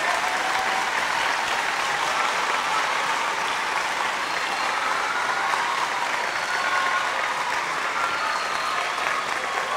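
Live audience applauding steadily, with scattered voices cheering over the clapping.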